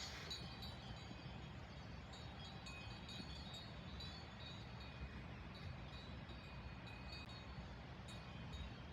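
Cowbells on grazing cows clinking faintly and irregularly, with a steady low rumble underneath.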